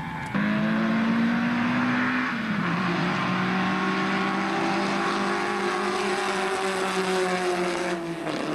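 Single-seater race car engine running hard as the car passes, cutting in sharply just after the start. Its note rises, steps down in pitch about two seconds in, then holds steady and sinks slightly near the end.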